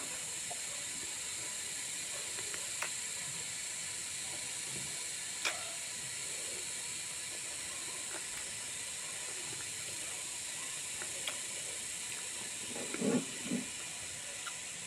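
Close-up eating sounds of someone chewing a mouthful of duck and rice by hand: a few sharp mouth clicks and smacks over a steady hiss, with a couple of short low mouth sounds near the end.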